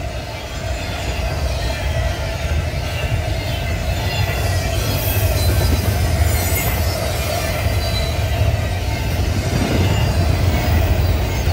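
Double-stack intermodal freight train rolling past a grade crossing: a steady low rumble of container cars and wheels on the rails, with a steady squeal above it.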